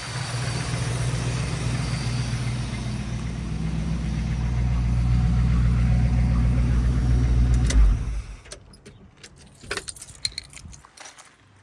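The V8 of a 1981 Dodge Ram 350 pickup with an Edelbrock 600 CFM carburetor, running steadily after its idle circuit was cleared with compressed air, then shut off abruptly about eight seconds in. Light clicks and rattles follow for a few seconds.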